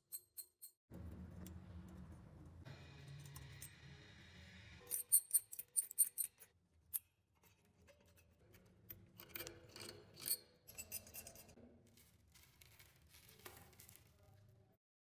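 A flat metal scraper blade scraping and chipping caked rust off an antique blowtorch's burner tube. It goes in short runs of crisp scratching strokes with pauses between them.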